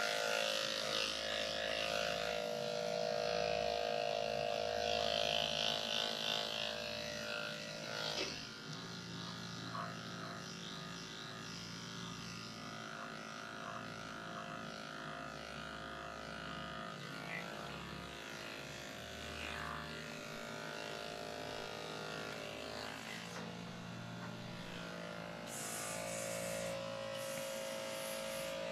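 Electric grooming clippers running steadily with a constant motor hum while shaving a dog's matted coat. Near the end come a few short hisses of coolant spray on the clipper blade.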